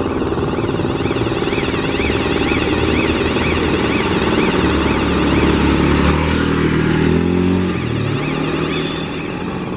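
Steady engine drone with a high warbling tone repeating over it. A motor vehicle passes close by, loudest a little past halfway, its engine pitch falling as it moves off.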